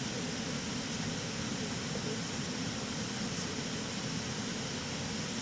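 Steady cockpit noise of an airliner in cruise: an even, unbroken rush of air.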